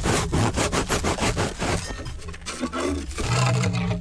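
Dry ice pressed against metal, chattering and scraping in rapid rough pulses, with a low groan in the last second.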